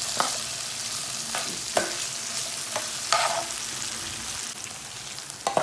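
Minced beef and mixed vegetables sizzling as they fry in a pan, with a spoon scraping and stirring against the pan every second or so.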